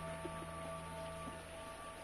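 Quiet background music: a soft, steady held chord.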